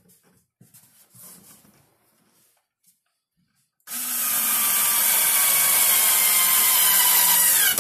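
A cordless drill starts about four seconds in and runs steadily under load into a plywood baseboard support for about four seconds, then stops sharply. Before it come a few soft handling sounds.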